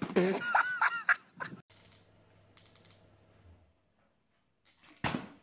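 A man falling from push-up bars onto a floor exercise mat: a sudden sharp thud about five seconds in, after a few seconds of quiet with a faint low hum. It opens with a loud second of short squeaky chirps and clicks.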